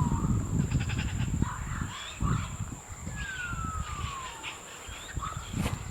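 Birds calling: a long down-slurred whistle ending just after the start and another about three seconds in, with short chirps between them, over a low rumbling noise that fades.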